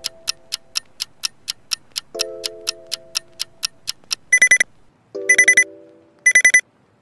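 Countdown timer sound effect: a clock ticking about four times a second over soft music chords. The timer runs out with an alarm clock beeping in three loud, short bursts about a second apart.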